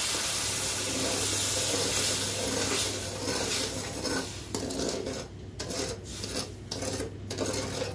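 Metal slotted spoon stirring and scraping against the bottom of a steel karahi of sugar and water on a gas flame, dissolving the sugar for syrup. A steady hiss from the pan in the first few seconds gives way to separate scraping strokes.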